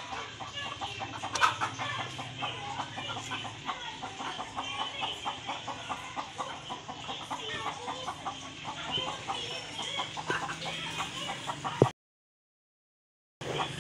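Domestic chickens clucking, several birds calling over one another in quick repeated clucks. A sharp click about a second and a half in, and near the end the sound cuts out completely for about a second and a half.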